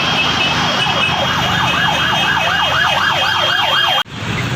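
Emergency vehicle siren in a fast yelp, rising and falling about three to four times a second over traffic noise, cutting off abruptly near the end.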